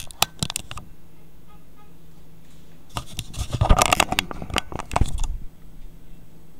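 Handling noise from a handheld camera being picked up and moved: a few clicks and scrapes at the start, then a louder cluster of scraping, rubbing and rattling from about three to five seconds in. A faint steady low hum runs underneath.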